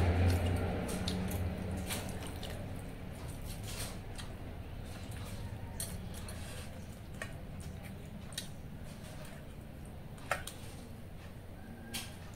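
Eating by hand from steel bowls of watery fermented rice: soft wet squishing with scattered light clicks and clinks against the metal. A low rumble fades out over the first two seconds.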